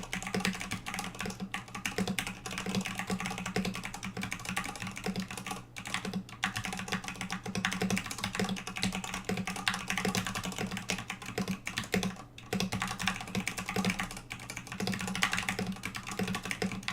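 Steady typing on a mechanical keyboard with 62g vintage Cherry MX Black linear switches, a steel plate and high-profile MT3 keycaps in an acrylic case: a fast run of keystroke clacks, with brief pauses about six and twelve seconds in.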